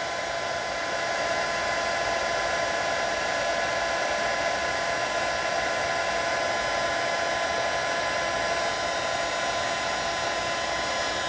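Heat gun blowing steadily, a constant rush of air with a thin motor whine, held on a circuit board to reflow solder paste under an SMD resistor.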